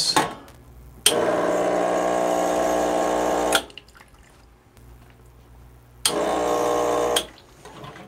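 Rancilio Silvia espresso machine's vibratory pump buzzing steadily as it pushes hot water through the group head into a cup. It runs twice: for about two and a half seconds, then for just over a second.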